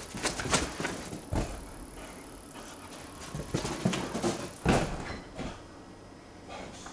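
A boxer dog scrambling and thudding about a room as it chases a laser dot, with irregular knocks and two heavy thumps, one near the middle as it jumps up onto a couch.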